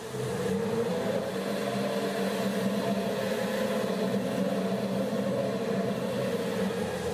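Recording of Futurist intonarumori noise machines droning steadily: a low mechanical hum with a slightly wavering higher tone over a rough, grinding noise.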